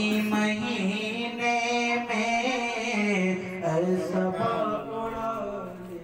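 A male voice singing a naat without instruments, drawing out long notes that bend and waver in pitch, growing quieter near the end.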